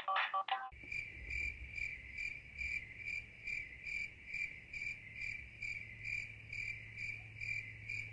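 Crickets chirping, a steady high chirp repeating about twice a second over a faint low hum. It cuts in suddenly just under a second in, right after the tail of a keyboard tune.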